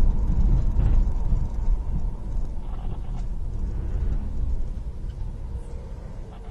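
Low, steady rumble of a moving car's engine and road noise, fading toward the end.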